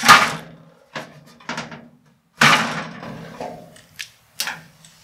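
Metal clunks and knocks of an air filtration unit's motor-and-fan housing coming loose and being handled inside its sheet-metal cabinet. The loudest clunk comes at the start, a second heavy one about two and a half seconds in, and lighter knocks fall between and after.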